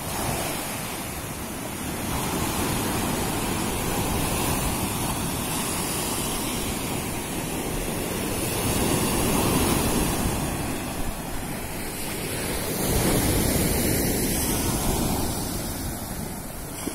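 Sea surf breaking on a sandy beach: a continuous wash of waves that swells and eases several times as each wave comes in.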